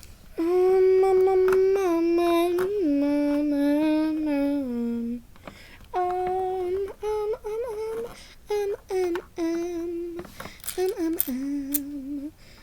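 A person humming a wordless tune in long held notes that slide and step down in pitch, in phrases broken by short pauses, with a few light clicks between them.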